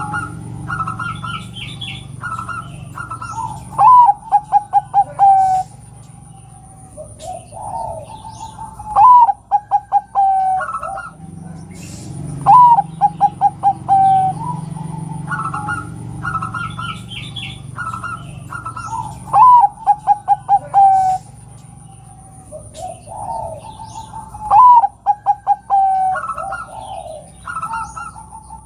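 Zebra dove (perkutut) cooing: five phrases, each a sharp rising note and then a quick run of short staccato coos, a few seconds apart. The call is given as a female's call to a male. Fainter chirps from other small birds come in between the phrases, over a thin steady high whine.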